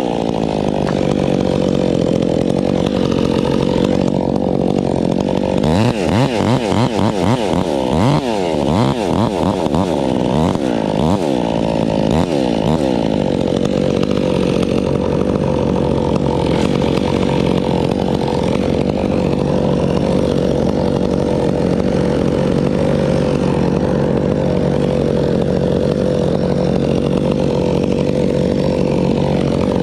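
Chainsaw running steadily at high speed. Between about six and thirteen seconds its engine note dips and rises again and again as the throttle is worked.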